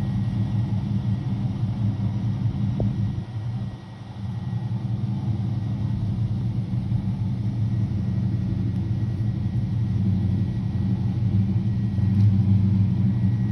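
Car engine running at a low, steady idle. It drops away briefly about four seconds in and then slowly gets louder.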